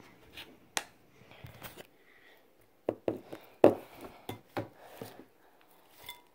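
Irregular knocks, bumps and rubbing from a phone camera being handled and repositioned, with the loudest knock about three and a half seconds in.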